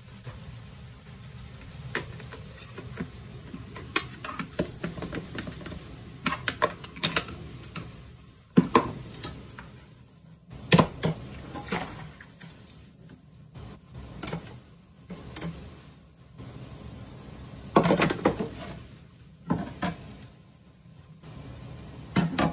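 Dishes being washed by hand in a sink: a sponge scrubbing, and stainless steel bowls, a colander and utensils knocking and clattering as they are handled, with a few loud knocks scattered through.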